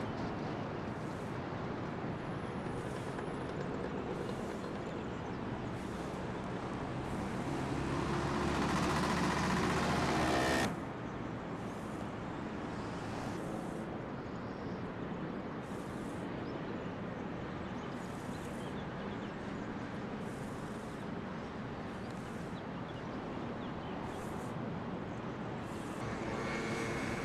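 Steady hum of distant road traffic. About seven seconds in, a vehicle engine grows louder and rises in pitch, then cuts off suddenly near eleven seconds in.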